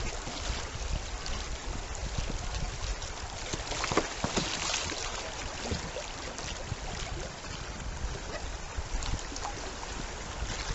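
Choppy river current rushing and splashing around a kayak, with a few sharper splashes, the loudest about four seconds in.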